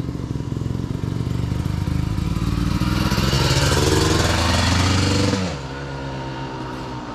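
Off-road motorcycle engine approaching and passing close by, growing louder, then its pitch drops sharply as it goes past about five seconds in and it carries on more quietly.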